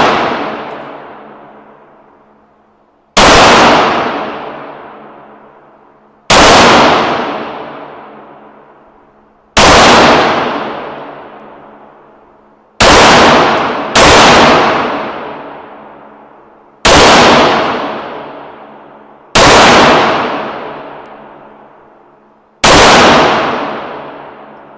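Slow, deliberate gunshots from a .22 Long Rifle firearm, eight shots about three seconds apart with two closer together near the middle, each ringing out into a long echoing decay.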